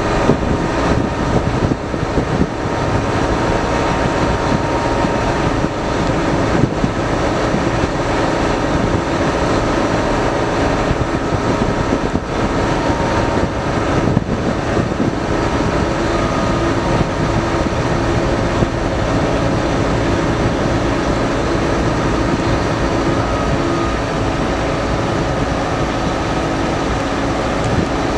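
Boat's diesel engine running steadily: a constant hum in several steady pitches over a rushing noise.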